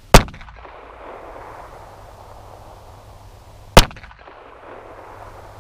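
Two shots from a .380 ACP compact pistol, one right at the start and one about three and a half seconds later.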